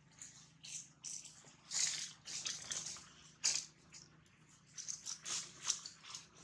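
Dry fallen leaves rustling and crunching in short, irregular crackles as macaques shift about on them, loudest about two seconds in, again near the middle and toward the end.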